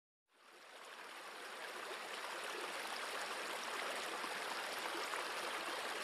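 Steady rushing of running water, like a stream, fading in over the first second or two and then holding even.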